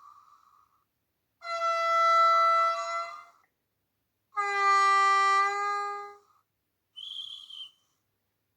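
Model locomotive sound decoder playing the two-tone horn of an ÖBB 2016 Eurorunner diesel through its small speaker: a higher-pitched blast of about two seconds, then after a pause a lower-pitched blast of similar length. A brief, higher, thinner sound follows near the end.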